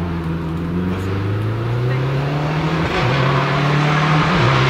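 Subaru Impreza rally car's turbocharged flat-four engine pulling hard and getting louder as it approaches. The note climbs and drops sharply twice, about three seconds in and again near the end, as it changes up a gear.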